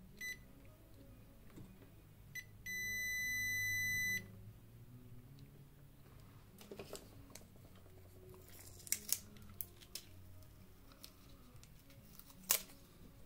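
An electronic beeper sounds a short high beep, then a steady high beep lasting about a second and a half. A few sharp clicks follow, with faint background music underneath.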